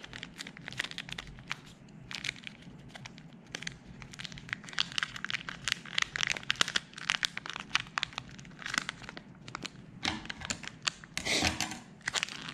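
Packaging being unwrapped by hand: continuous crinkling and tearing with many small, sharp clicks, as a mailed package of silver coins is opened.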